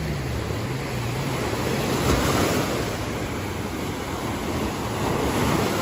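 Sea waves washing onto a beach, with wind buffeting the microphone; a wave surges up about two seconds in.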